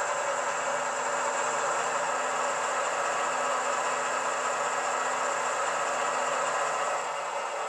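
ESU LokSound hi-fi sound decoder in a Piko model of the ÖBB class 2016 diesel-electric locomotive, playing the diesel engine idling through a passive radiator speaker while the model stands still. The sound is steady, with a low note that fades out near the end.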